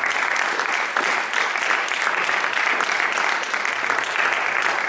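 Audience applauding: a steady patter of many hands clapping at once.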